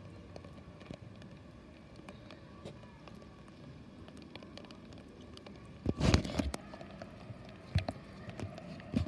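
Distant Airbus A330 jet engines at takeoff power, a steady faint rumble with a thin held whine, under rain. About six seconds in, heavy running footsteps on wet pavement and camera knocks take over and are the loudest sound.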